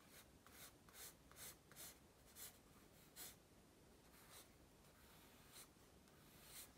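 Pencil sketching on paper: faint, short scratchy strokes, coming quickly in the first few seconds and then more sparsely.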